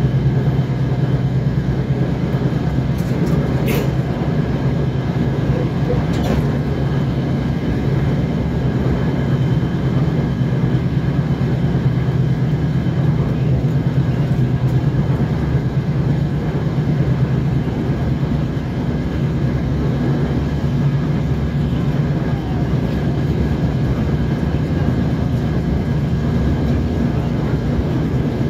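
Inside a DR1A diesel multiple unit running along the line: the steady low drone of the diesel engine and the wheels on the rails, with a few faint clicks about three to six seconds in.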